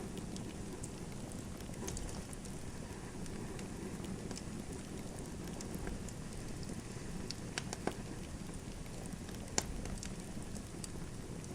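Wood fire crackling in a fireplace: a steady low rumble of burning with scattered small crackles, and a few sharper pops about 7 to 10 seconds in.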